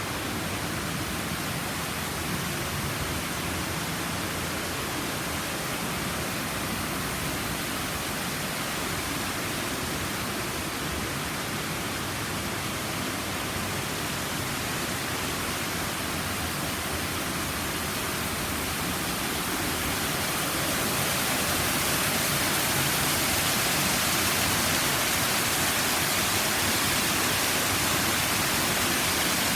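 Small garden waterfall: a steady rush of falling water, getting a little louder and brighter about 20 seconds in.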